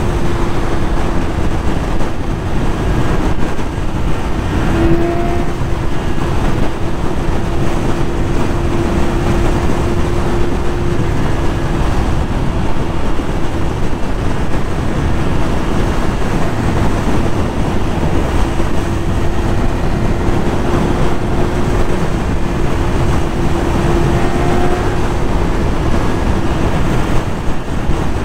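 Yamaha YZF-R6 600cc inline-four engine running at high revs at freeway speed, its pitch nearly steady with small shifts as the throttle changes, under heavy wind rush on the microphone.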